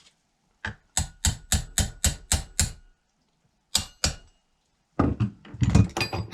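A run of sharp taps or knocks on hard parts, about four a second for under two seconds, then two more and a denser, irregular cluster of knocks near the end, as small chainsaw parts are handled and fitted back together.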